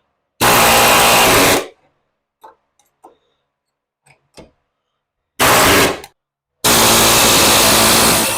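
Handheld power tool run in three loud bursts: a long one, a short one and a longer one near the end. Light knocks of metal work sound in between.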